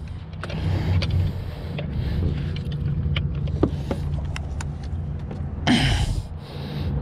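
Steady low motor hum on a boat, with scattered clicks and knocks as a big catfish is handled and weighed, and a short burst of rushing noise about six seconds in.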